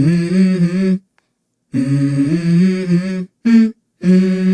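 A deep voice intoning long held notes, stepping between two low pitches like a chant or hum. It comes in phrases of about a second, cut off sharply into dead silence three times.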